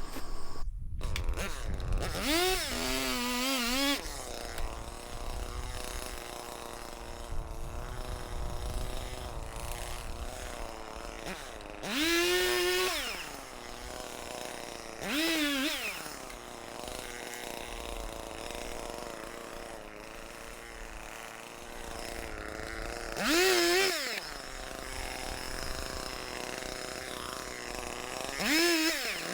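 Echo two-stroke gas chainsaw idling steadily and revved up briefly about five times, each rev rising and falling in pitch over a second or two.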